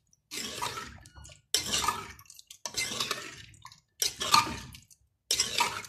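Metal spoon stirring chicken in yogurt inside a clay handi, scraping through the pot in five even strokes a little over a second apart.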